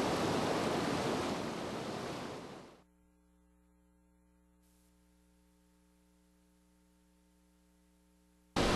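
Rushing of a muddy river in flood, a dense steady roar that fades away over the first three seconds. Then near silence with only a faint steady hum, until the roar of water cuts back in abruptly near the end.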